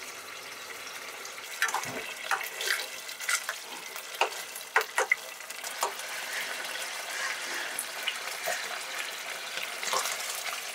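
A stew bubbling and sizzling in a nonstick pan, a steady hiss, while a metal ladle stirs it and clicks and scrapes against the pan several times in the first half.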